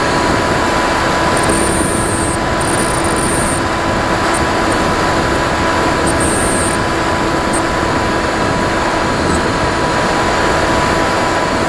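Steady rush of wind over the airframe with a constant motor and propeller whine underneath, picked up by the camera on board an FPV model aircraft in level flight.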